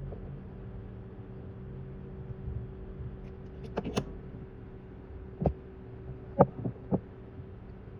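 Steady low hum with a few short, sharp clicks and taps: a quick cluster a little before halfway, then single clicks, the loudest about six and a half seconds in.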